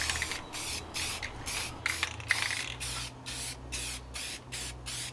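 Aerosol can of black spray paint spraying in short hissing bursts, about three a second, as it coats bare pine edges and end grain.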